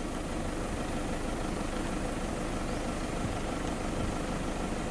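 Steady engine and road noise of a car moving slowly.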